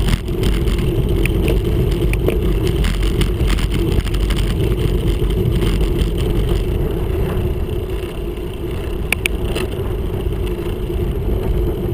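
Wind and road rumble on the handlebar-mounted camera of a moving road bike: a steady, loud rush, heaviest at the low end, with a couple of sharp clicks about nine seconds in.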